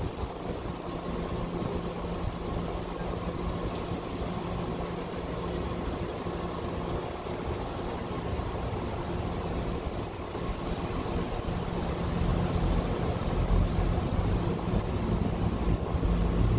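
Steady low hum and rumble of idling vehicles and street traffic, heavier in the last few seconds, with a single sharp click about four seconds in.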